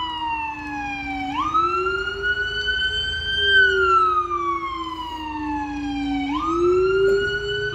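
Police car siren on a slow wail: the tone sweeps quickly up about a second in, drifts a little higher, then slides slowly down for about three seconds, and sweeps up again near the end.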